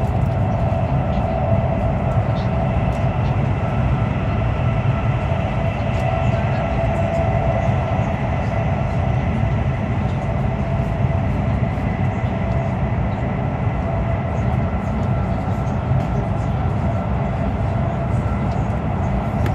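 Cabin noise inside a CRH1A high-speed train running at speed through a tunnel: a steady low rumble with a thin, even whine over it.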